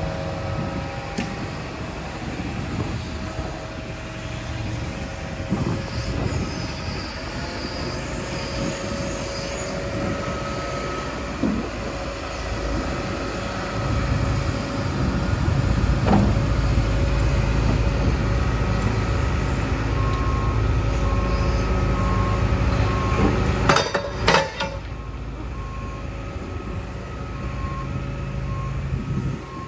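Hitachi ZX170W-6 wheeled excavator's diesel engine running while the hydraulics swing the upper structure and move the boom. The engine note rises under load about halfway through, with a few sharp clanks near the end. A warning alarm beeps steadily from about two-thirds of the way in.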